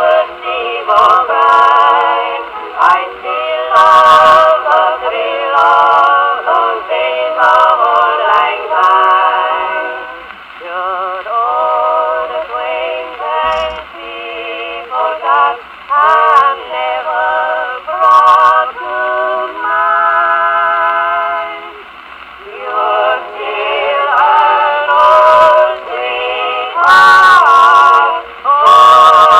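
A 1920 Columbia Grafonola wind-up phonograph playing a 78 rpm record: a wavering, vibrato melody heard thin and narrow, with little bass or treble, and a few sharp clicks over the music.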